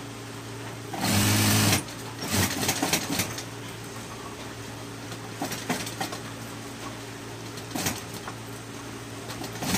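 Industrial sewing machine stitching in one short burst about a second in, its motor humming steadily throughout. A few light clicks and rustles follow.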